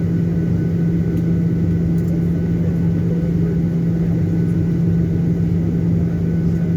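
Steady drone of a Boeing 737-800's CFM56-7B engines heard inside the cabin: a constant low rumble with a strong hum and faint steady whining tones above it.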